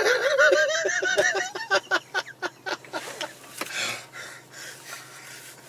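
A man laughing heartily: a run of quick, rising 'ha' pulses that fades over a few seconds into quieter, breathy chuckles.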